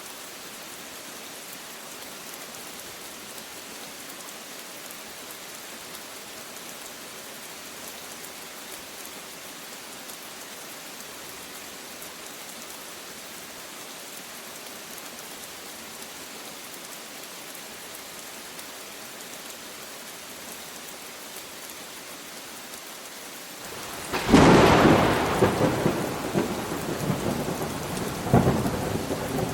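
Steady rain falling, then a loud thunderclap about three-quarters of the way through that rumbles on, with a second crack a few seconds later.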